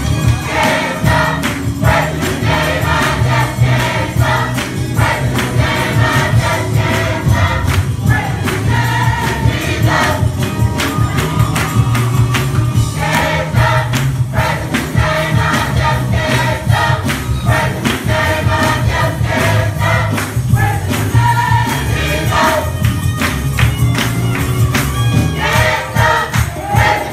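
Church gospel choir singing in full voice over keyboard and bass accompaniment, with a steady percussive beat.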